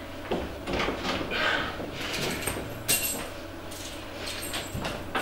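Light knocks, clicks and rustling of things being handled, with one sharp click about three seconds in.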